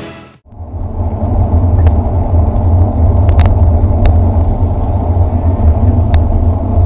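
Wind buffeting the microphone of a bicycle-mounted camera while riding along a road, a steady low rumble mixed with the sound of passing traffic. A few sharp clicks come through at irregular moments.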